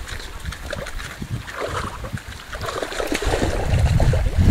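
A hooked fish splashing and thrashing at the water surface as it fights the line. Wind rumbles on the microphone, growing louder near the end.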